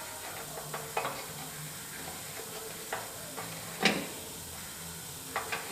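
Light taps and scrapes of a steel plate being shifted against a riding mower's sheet-steel frame, with one sharper knock a little before four seconds in.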